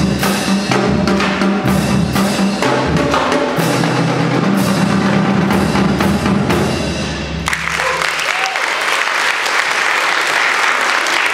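Marching drumline of tenor drums, snare and pitched bass drums playing, stopping together on a final hit about two-thirds of the way through, followed by audience applause.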